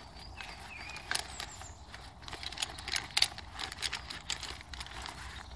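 A folded aluminium-framed camp chair being taken out of its nylon carry bag and handled: fabric rustling with irregular light clicks and clacks of the frame poles.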